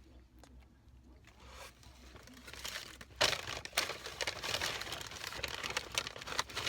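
Paper fast-food packaging crinkling and rustling as it is handled, starting about three seconds in and carrying on in dense bursts to the end.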